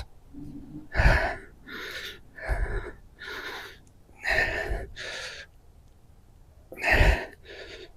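A man's heavy, gasping breaths, about eight of them in a row, as he strains to force a rope plug on its insertion tool into a tire puncture.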